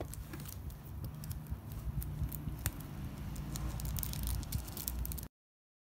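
Crinkling and rustling of clear plastic packaging, with small clicks, as a small stack of stickers or cards is wrapped by hand. It cuts off suddenly about five seconds in.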